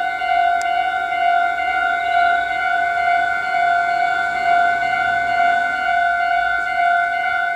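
Japanese railway level-crossing alarm ringing: an electronic bell with a steady ringing tone that pulses a little over once a second, each strike running into the next. It warns that a train is approaching.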